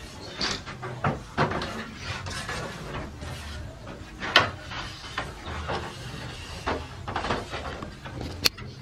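Metal baking trays being slid and knocked along the racks of a brick oven with a long metal hook: irregular scraping and clanks of metal on metal, the sharpest about four seconds in.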